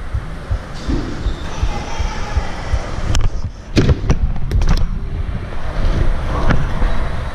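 BMX bike rolling over smooth concrete, with a low wind rumble on the bike-mounted camera's microphone. Several sharp knocks and clatters come between about three and five seconds in, from the bike's frame and tyres hitting the ground.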